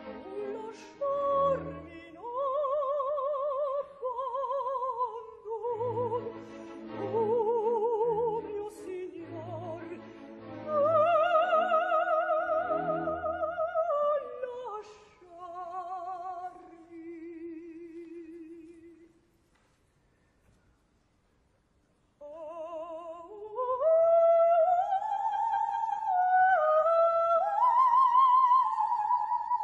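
Operatic soprano singing with a wide vibrato over soft orchestral accompaniment with pulsing low chords. About two-thirds of the way in the music stops for a couple of seconds of near silence, then she resumes on rising, held high notes.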